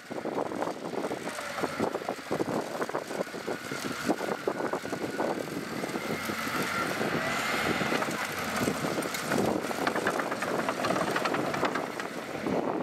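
Diesel engine of earthmoving machinery running with a rapid, continuous clatter, and a high whine that rises and falls around the middle.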